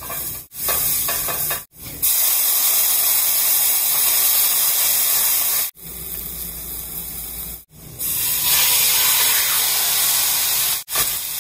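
Chopped onion and then chicken pieces sizzling in a hot stainless steel frying pan, a steady hiss that grows stronger about eight seconds in once the chicken is in, broken by several abrupt cuts.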